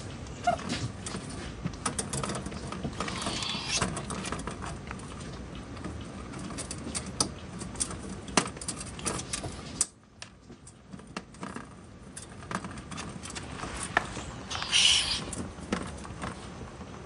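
Two ferrets play-fighting in a wire cage: scuffling, paws and claws scrabbling on the cage floor, and many small clicks and rattles. A short rushing noise about two seconds before the end is the loudest sound.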